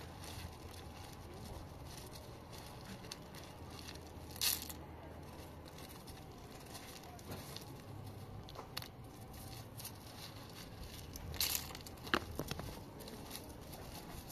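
Hands scraping and picking up broken concrete rubble, small chunks crunching and clacking against the slab, with a few louder scrapes about four seconds in and again around eleven to twelve seconds in.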